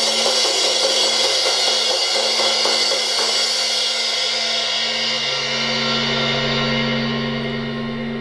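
Ingriss XIII 16-inch cymbal rolled hard with drumsticks: a dense, steady shimmering wash that starts to die away near the end.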